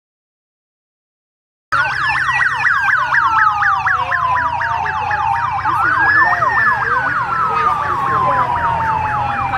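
Emergency vehicle sirens start about two seconds in: a slow wail rising and falling every few seconds with a fast yelp sweeping over it, and a low engine hum beneath.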